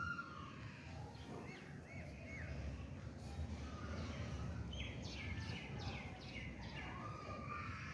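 Small birds chirping over a steady low background rumble: a few short arching chirps about two seconds in, then a quick series of about six sharp chirps near the end.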